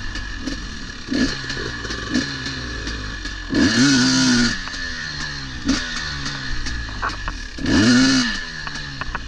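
KTM 250 XC-W two-stroke dirt bike engine being blipped and revved at low trail speed, pitch rising and falling with each throttle burst, with two longer, louder revs near the middle and near the end. Scattered clicks and knocks from the bike working over the trail.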